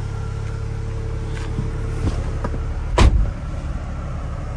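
Mini Cooper's 1.6-litre engine idling, heard from inside the cabin as a steady low hum, with a single sharp knock about three seconds in.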